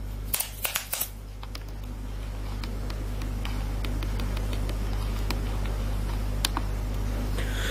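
Steady low hum of room tone, with a few sharp clicks in the first second and faint scattered ticks after.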